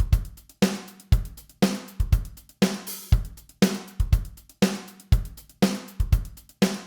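Drum loop of kick and snare playing dry, without any saturation, in a steady beat with a hit about every half second.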